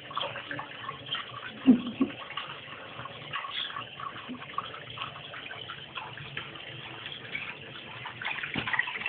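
Water running steadily from a bathroom tap into a sink basin, splashing with small ticks as a cat drinks from the stream. A couple of brief, louder sounds come about two seconds in.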